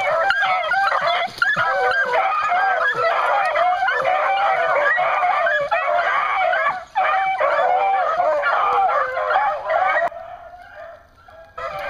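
A pack of beagles baying together in full cry, many voices overlapping, as hounds running a rabbit do. The chorus fades about ten seconds in and picks up again near the end.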